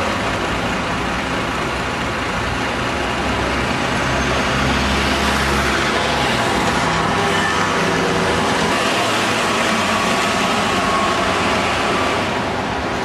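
Routemaster double-decker bus's diesel engine running as the bus pulls away, over steady street traffic; its low rumble is strongest about four to six seconds in.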